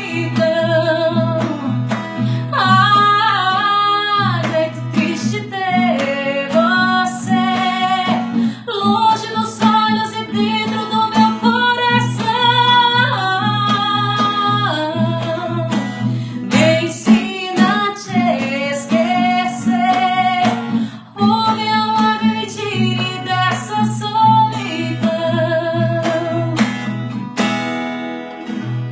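A female voice sings a slow melody over acoustic guitar accompaniment, fading away at the very end.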